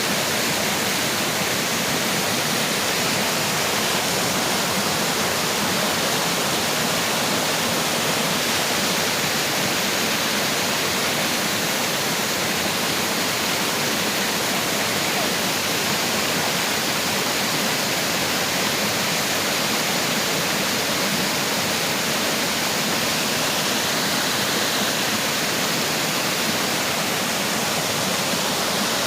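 Waterfall rushing: a steady, loud roar of falling water with no change.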